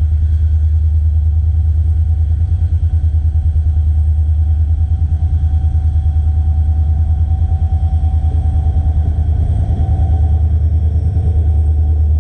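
Diesel locomotive hauling an express passenger train, approaching and then passing close by: a deep, steady engine rumble with a fast pulsing beat. The rumble fills out from about five seconds in as the locomotive nears.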